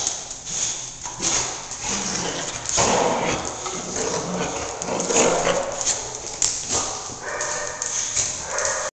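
Two dogs play-wrestling, with dog vocal noises and scuffling. A higher, drawn-out call comes near the end.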